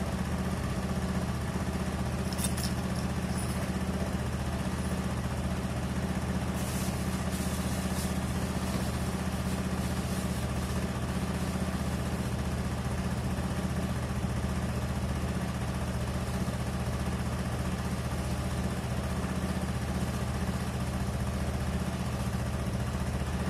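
KYMCO Racing 150 scooter's single-cylinder four-stroke engine idling steadily with an even note, running so the alternator charges the battery. A few faint clicks sound in the first eight seconds.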